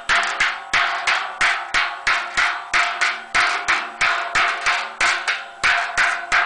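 Wooden mallet beating a sheet-metal cauldron by hand as it is formed: steady blows about three a second, each making the metal body ring briefly.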